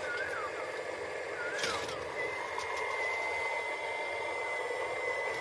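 Radio-controlled model excavator (a Cat 336D scale model) running: a steady whir of its small electric motors and gears, with a click about two seconds in and a steady high whine from then on.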